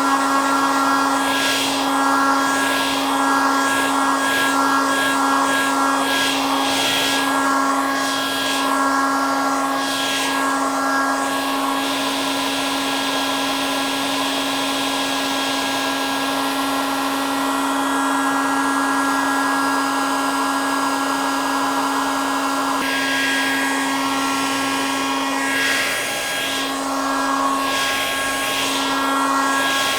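Hair dryer running steadily: a constant motor hum with a few steady higher tones over an even rush of blowing air that wavers now and then.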